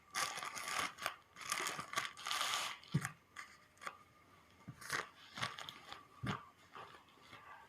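Parcel packaging being torn open and crinkled by hand: rustling, tearing bursts in the first three seconds, then scattered light knocks and rustles as the contents are handled.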